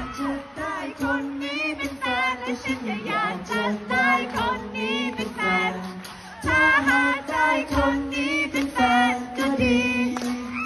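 Female voices singing a song with musical accompaniment, over a steady low held note.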